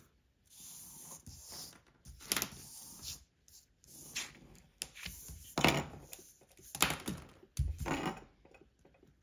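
Pencil compass scratching across paper as arcs are drawn, followed by several sharp knocks and paper handling on a wooden tabletop.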